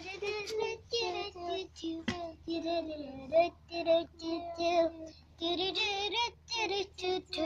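A child singing a tune in short held notes, the voice stepping between pitches. There is a single click about two seconds in.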